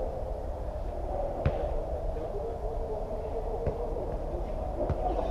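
Echoing indoor-pitch ambience of a small-sided football game: a steady wash of distant players' calls and hall hum, with a few sharp thuds of the ball being kicked, the loudest about a second and a half in.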